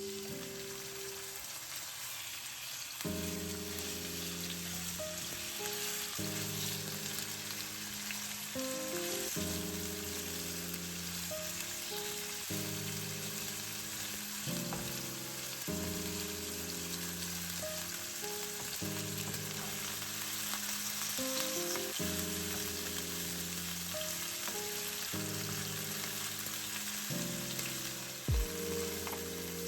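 Food sizzling in hot oil in a frying pan, a steady hiss under soft background music. A single brief knock comes near the end.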